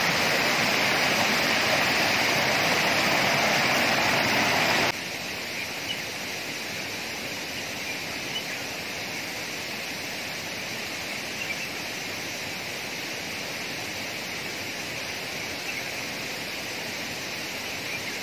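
Water rushing over rocks in a shallow river cascade, loud and close for about five seconds, then cutting abruptly to a quieter steady rush of river water, with a few faint ticks.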